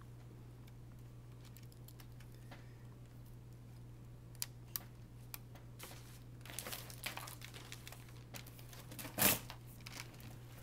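Plastic parts of a Dell Studio 1730 laptop being handled during a keyboard and speaker replacement: small clicks and crinkling, sparse at first and busier past the middle, with one sharper knock near the end. A steady low hum runs underneath.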